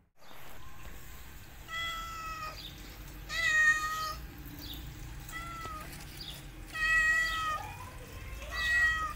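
A cat meowing repeatedly: about five short, fairly level-pitched meows, with a fainter falling call between the last two.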